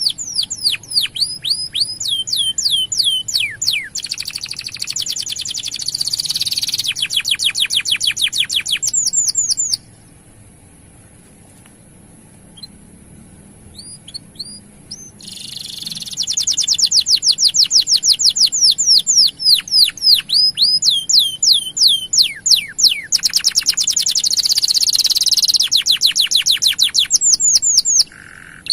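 Male canary singing long, fast rolling trills of repeated downward-sweeping notes, changing from one run to the next. About ten seconds in the song breaks off for several seconds with only a few soft chirps, then the fast trills resume.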